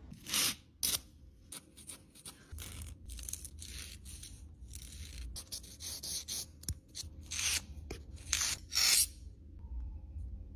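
A paper sterilization pouch is torn open, then a nail buffer block is rubbed over a fingernail in a series of short rubbing strokes, the loudest of them near the end.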